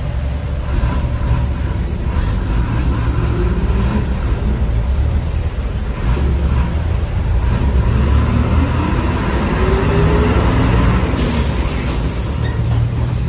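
An old open-window city bus's engine rumbling loudly, with its pitch rising twice as the bus speeds up. A sharp hiss of the air brakes about eleven seconds in.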